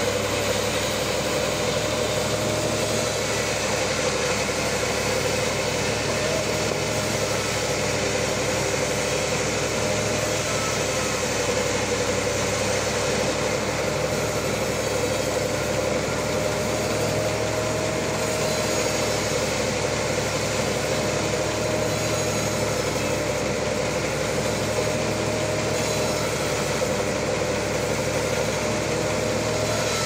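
Large band sawmill running steadily with its blade cutting through a trembesi (rain tree) log, a continuous machine drone with a high tone that wavers slightly in pitch.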